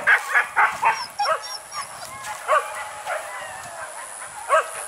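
Hunting dogs barking: a quick run of barks in the first second, then scattered single barks.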